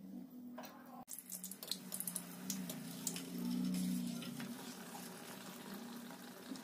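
Vellai paniyaram batter of rice and urad dal frying in hot oil in a kadai: bubbling and sizzling, with scattered crackles and pops from about a second in, over a low steady hum.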